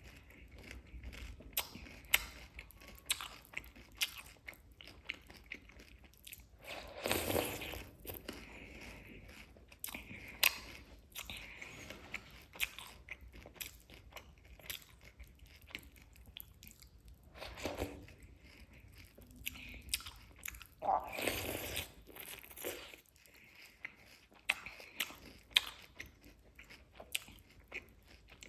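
Close-miked eating: a person chewing and crunching chocolate cake and Chocos cereal, with many sharp mouth clicks and a few louder crunching stretches.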